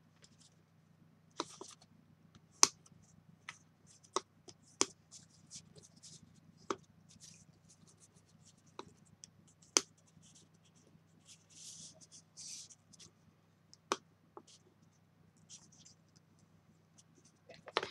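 Cardstock being folded and creased by hand with a bone folder: a dozen or so sharp, separate taps and clicks of card and folder on the mat, with short soft rustles and scrapes as the card is handled and the folds pressed.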